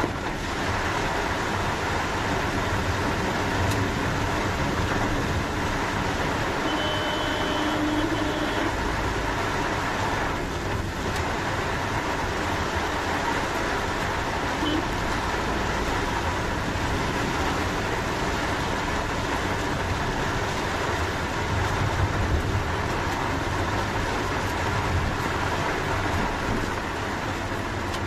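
Steady cabin noise inside a Maruti Suzuki Alto K10 driving through heavy rain: the hum of its small three-cylinder petrol engine under an even hiss of rain and wet road.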